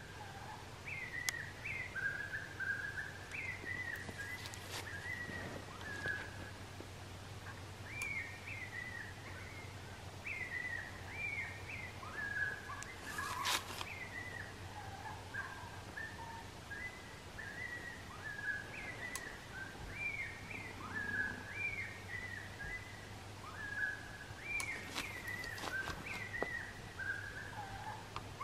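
Bird-like chirping calls: short notes that rise and fall, repeating in quick clusters over a low steady hum. One sharp click comes about halfway through.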